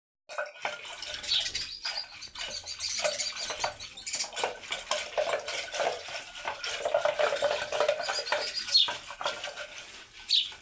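Curd being churned with a wooden churning stick (mathani) twirled between the palms in an aluminium pot: continuous sloshing with quick, irregular clicks and knocks of the stick against the pot. The curd is being churned into lassi.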